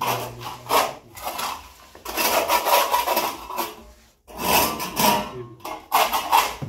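Repeated rough scraping or rubbing strokes on a hard surface, some short and a few lasting about a second, with a brief pause a little after the halfway point.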